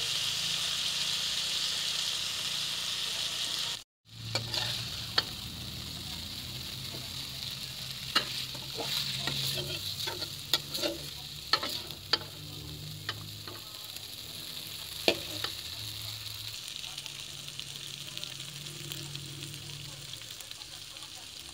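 Mie goreng noodles sizzling in a wok as they are stir-fried, with the spatula clicking and scraping against the wok in a run of sharp taps in the middle. The sound cuts out for a moment about four seconds in, and the sizzle is quieter after it.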